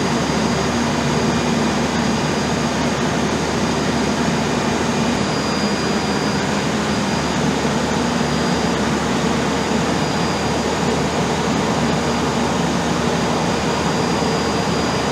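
Diesel generator converted to dual fuel (diesel and gas together) running steadily under way: a loud, even engine drone with a thin, steady high whine over it.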